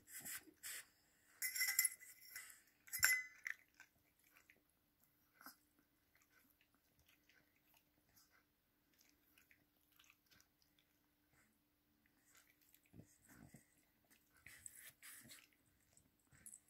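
Yorkshire terrier eating dry kibble from a stainless steel bowl. There are short bouts of crunching and clicks in the first few seconds and again near the end, with faint scattered clicks between.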